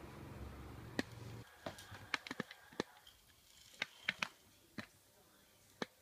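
About a dozen scattered sharp clicks and taps from a small plastic remote-control toy car being batted and knocking about. A low rumble runs under the first second and a half.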